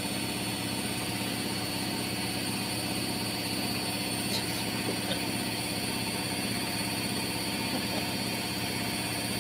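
Steady low machine drone with several constant tones, unchanging throughout, like a running engine.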